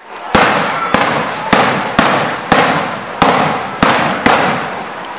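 Fireworks bursting in quick succession: eight sharp bangs about every half second, each trailed by a fading crackling hiss as the white glitter stars burn out.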